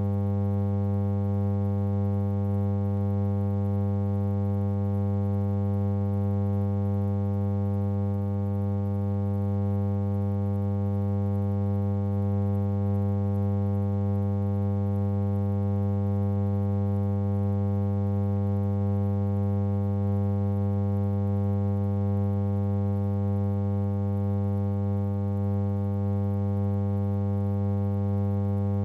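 Steady electrical mains hum, a low buzz with many evenly spaced overtones that never changes in pitch or level. It is the only thing on the track, since the film itself has no sound.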